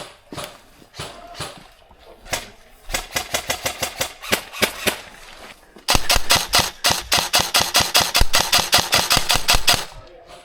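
Airsoft rifles firing on full auto: a few short rapid bursts about three seconds in, then a louder unbroken stream of shots, roughly a dozen a second, for about four seconds before it stops near the end.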